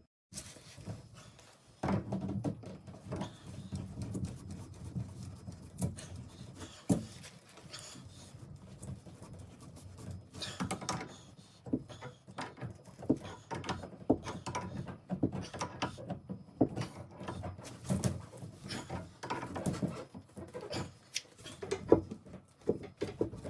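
An adjustable wrench and hands working on the metal pipe fittings of a shower valve, tightening a union nut: irregular clicks, taps and light knocks of metal on metal, with handling rustle in between.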